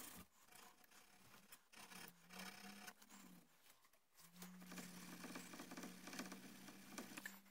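Faint rubbing and scratching of fine 400-grit abrasive paper polishing a small steel rear sight, in short spells with pauses between. A low steady hum runs underneath from about two seconds in.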